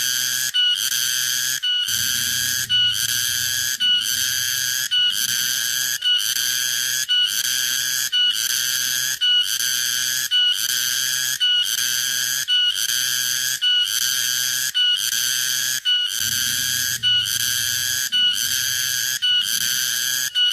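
Garengpung cicada (tonggeret) calling: a steady, high-pitched buzzing whine repeated in even phrases about once a second, each phrase broken by a brief gap and a short higher note.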